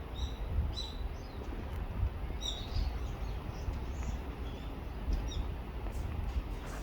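Small birds chirping: short high chirps scattered through, over a steady low rumble.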